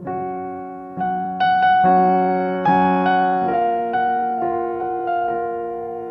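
Background piano music: a slow melody of struck notes and chords, a new note about every half second to a second, each fading away after it is struck.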